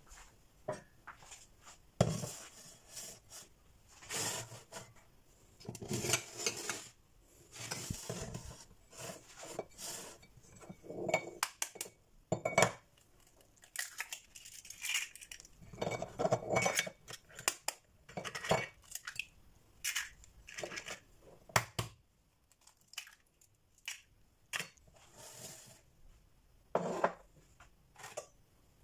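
Three eggs cracked one at a time into a glass bowl: sharp taps of shell against the glass rim, the crunch of shell breaking, and clinks and knocks of the glass bowl on the counter.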